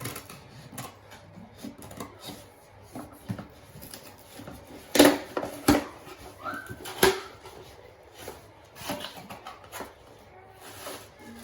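A cardboard package being opened and its contents handled: rustling, scraping and small clicks, with a few loud sharp sounds about five and seven seconds in.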